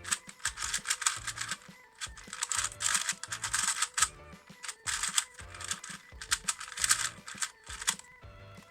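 YuXin Black Kirin 2x2x2 speedcube being turned rapidly by hand: quick plastic clicking and clacking in four runs, with short pauses between them. Background music plays underneath.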